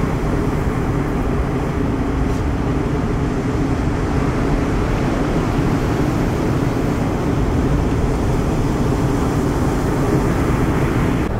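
Heavy sea surf breaking and washing in: a steady low rumble.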